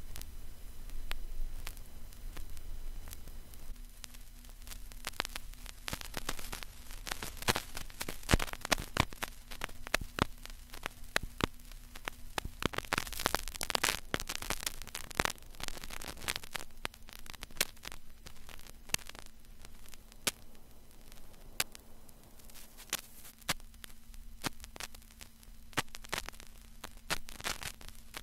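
Vinyl record surface noise: a steady hiss with irregular crackles and pops, over a faint steady hum.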